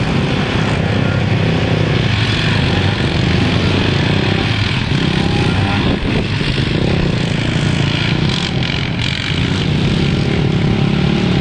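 Several ATV (quad bike) engines running steadily as a line of quads rides past on a warm-up lap.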